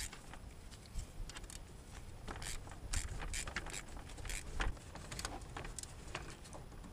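Hand ratchet with a swivel socket clicking faintly and irregularly while tightening an alternator mounting bolt, with light metallic clinks of the tool, the clicks thickest in the middle.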